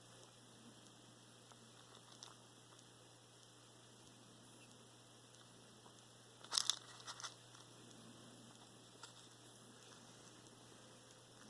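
Russian Blue cat chewing food, faint, with a short cluster of sharp clicking crunches about six and a half seconds in and a few fainter single clicks elsewhere. This is the strange chewing noise of a cat that eats too little, which a dental cleaning did not cure.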